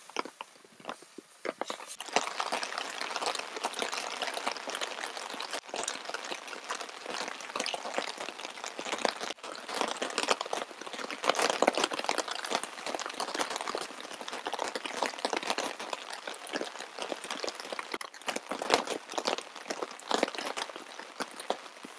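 Steady rain: a dense patter of drops, with close drops tapping, picking up about two seconds in.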